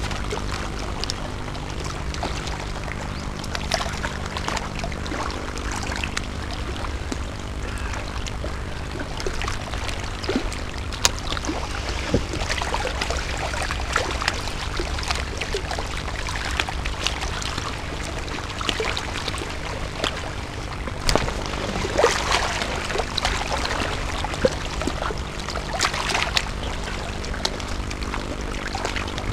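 Small waves lapping and trickling at a rocky lakeshore over a steady low rumble, with scattered clicks and rustles throughout. Louder crackly patches come about 22 and 26 seconds in.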